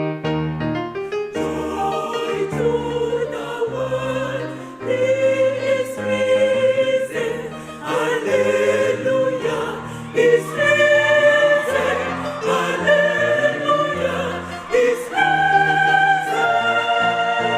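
A choir singing in parts, moving from chord to chord about every second.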